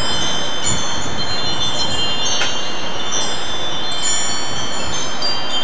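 Wind chimes ringing: many high, clear tones struck one after another and left to ring, overlapping over a steady hiss.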